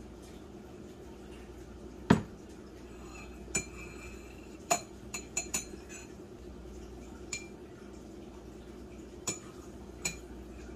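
Metal spoon clinking and tapping against a ceramic mug while honey is stirred into coffee, with one louder knock about two seconds in and scattered sharp clinks after it, over a steady low hum.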